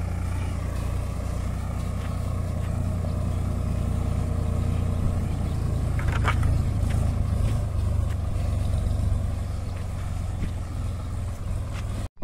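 Diesel engine of a Sonalika tractor running steadily under load as it pulls a heavily loaded trailer, a low, even drone. A brief higher-pitched sound cuts in about six seconds in.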